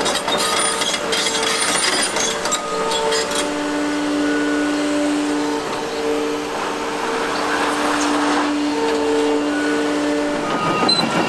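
Liebherr R930 G8 crawler excavator working, with whining and squealing tones that come and go over the machine noise. A rapid rhythmic clanking starts near the end, typical of the steel tracks moving.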